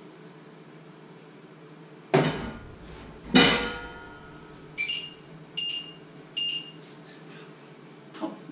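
Two knocks of kitchenware, the second a ringing metal clang, then three short electronic beeps from a kitchen appliance, evenly spaced under a second apart.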